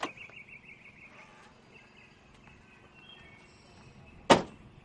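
An Isuzu Panther's car door slammed shut once with a single sharp thump near the end, over faint outdoor chirping.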